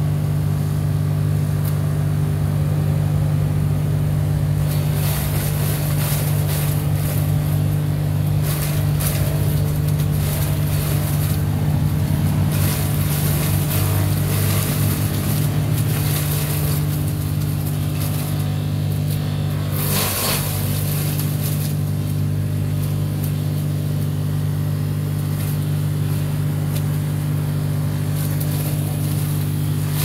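Hansa C3e electric wood chipper running with a steady motor hum, chewing through fresh-cut leafy branches in bursts of chipping noise from about five seconds in until about twenty seconds in, then running on with less chipping.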